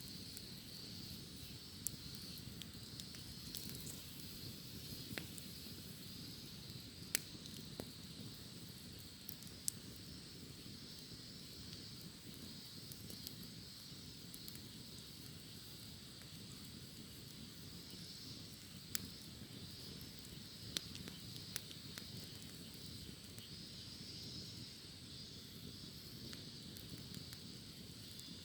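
Wood fire crackling with a few sharp pops scattered through, over a steady high-pitched drone of cicadas singing.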